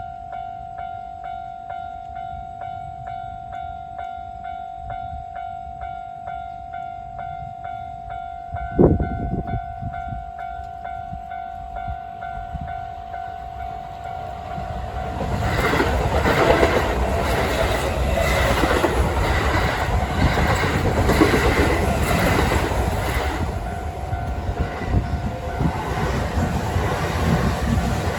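Japanese railway level-crossing warning bell ringing in a steady rhythm. About nine seconds in comes a short, loud blast from the approaching train's horn. From about fifteen seconds on, a train passes over the crossing, loud, with its wheels running over the track.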